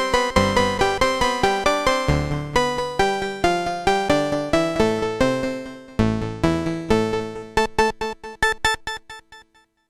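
Roland Boutique D-05 synthesizer playing a patch as a fast, rhythmic run of short repeated notes over a bass line, with no added effects. A new loud note about six seconds in, after which the notes thin out and fade away to silence near the end.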